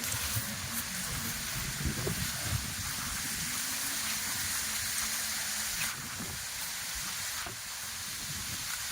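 Steady hissing noise with a low rumble underneath.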